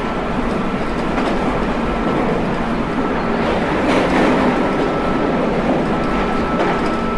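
JR Kyushu 811 series electric train running steadily along the track: a continuous rumble of wheels on rail with faint steady tones, and a couple of light rail-joint clicks about a second in and again about four seconds in.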